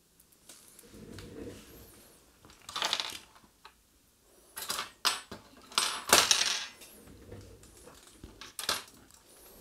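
Small metal radio cabinet parts being set down and picked up on a workbench: a series of light metallic clinks and clatters, busiest about halfway through.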